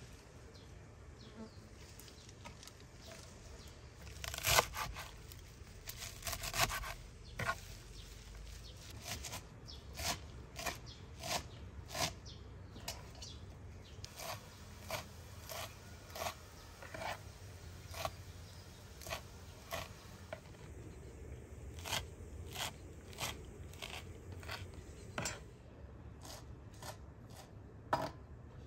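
Large kitchen knife chopping green onions and herbs on a wooden cutting board: short, sharp knocks about once or twice a second, starting a few seconds in.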